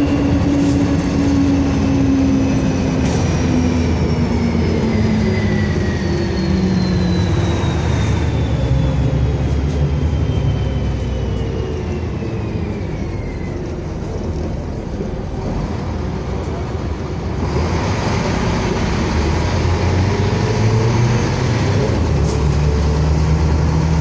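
LiAZ 5256 city bus heard from inside the cabin while driving: diesel engine and drivetrain running, with a high whine and the engine note falling in pitch over the first half. It goes a little quieter in the middle, then the engine note rises again near the end.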